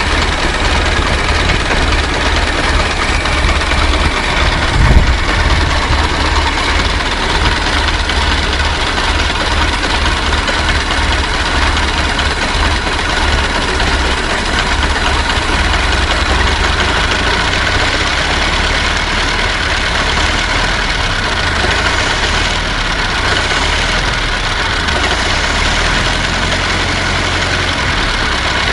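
Old car engine idling steadily, with one brief louder bump about five seconds in.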